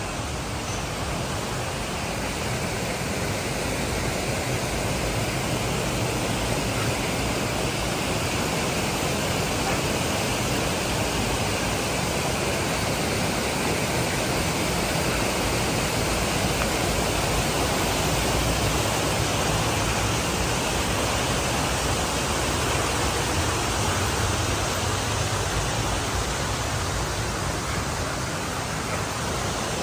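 Steady rushing of a cascading stream and its small waterfalls, whitewater pouring over rock ledges.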